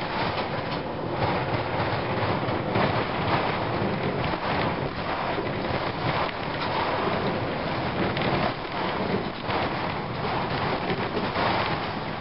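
Cabin noise of a 2004 Gillig Phantom transit bus under way: its Cummins ISM diesel and road noise making a steady rumble, with frequent short knocks and rattles throughout.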